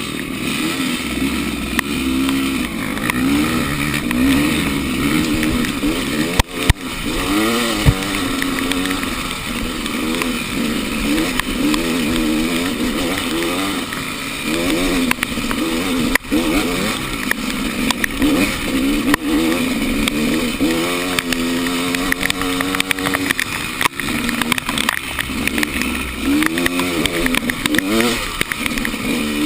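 Enduro motorcycle engine revving up and down over and over as the bike is ridden, its pitch rising and falling every second or two, with two sharp knocks about six and a half and eight seconds in.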